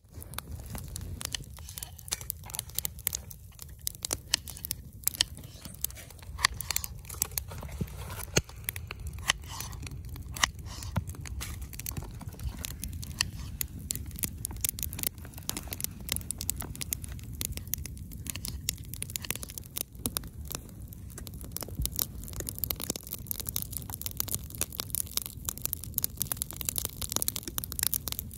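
Wood campfire crackling: irregular sharp pops and snaps over a steady low rumble.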